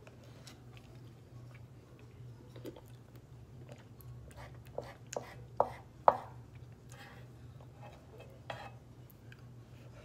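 A spoon scraping and knocking against the pan of an electric skillet while food is scooped out, with a run of four sharp knocks about five to six seconds in and another near the end. A steady low hum runs underneath.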